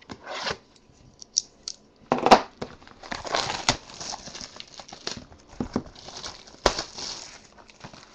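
Plastic shrink wrap on a trading-card box being slit with a box cutter, then torn and peeled off by hand: irregular crinkling and tearing, with a couple of sharp knocks from the box being handled, about two seconds in and again near the end.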